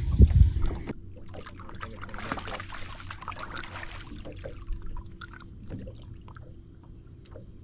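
Small waves lapping and trickling against a fibreglass bass boat's hull, with a faint steady hum. A burst of low wind rumble on the microphone comes in the first second.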